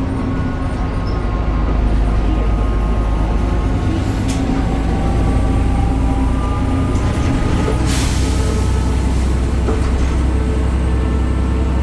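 BredaMenarini Avancity Plus city bus under way, heard on board: its Deutz Euro 5 diesel and ZF gearbox running with a steady low rumble and a whine of several tones that drift slowly in pitch. A sharp click comes just after 4 seconds, and a short hiss about 8 seconds in.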